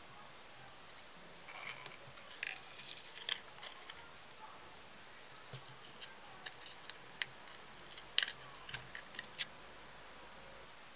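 Watch-battery blister pack being peeled open and handled, with crinkling of plastic and paper about two to four seconds in, then scattered small sharp clicks and ticks as the button cell is worked free.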